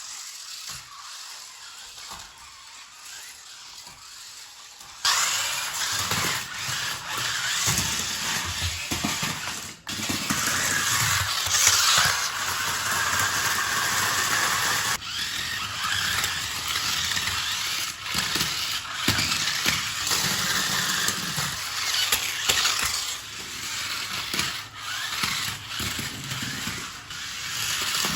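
Small electric motors of toy remote-control stunt cars whirring as they drive and spin, with the wheels scrubbing on the floor. The sound is quieter at first, then jumps suddenly louder about five seconds in and rises and falls from then on.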